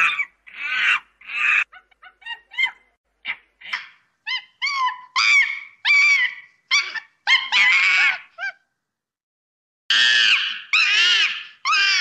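Chimpanzee calling: a run of short pitched calls that grow louder and longer, then after a pause of about a second, three long, loud calls near the end.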